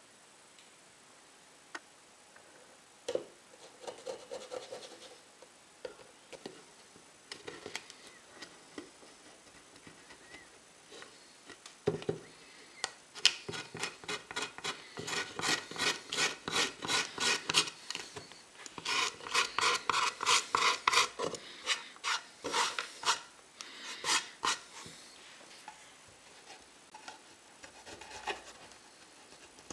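A double-edged razor blade scraping the surface of an old wooden tray, flaking off a dried white coating. Scattered scrapes come first, then a long run of quick strokes, several a second, through the middle, thinning out near the end.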